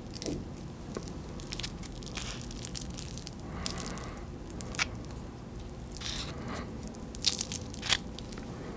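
Soft, wet squishes of mashed avocado being scooped with a wooden spoon and spread onto a crispy hash brown, with scattered short crackles from the hash brown as it is handled.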